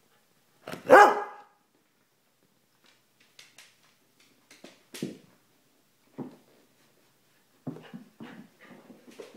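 Terrier dogs barking in play: one loud, high bark about a second in, a few scattered short barks after it, and a quicker run of short barks and yips near the end.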